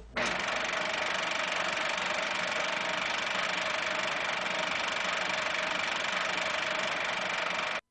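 Steady, even hiss with a faint hum, with no music or speech. It cuts off abruptly near the end.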